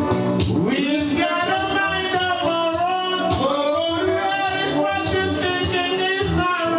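A man singing long, wavering melodic lines into a microphone over a karaoke backing track with a steady beat; the voice comes in about a second in and drops out near the end.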